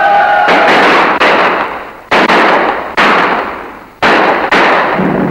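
Shell explosions on an old 1930s film soundtrack: about six blasts in quick succession, each starting suddenly and dying away over up to a second.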